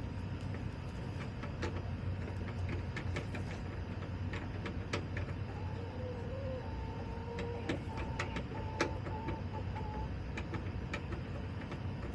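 Backyard chickens pecking and scratching: scattered sharp clicks and taps over a steady low hum, with a faint drawn-out hen call in the middle.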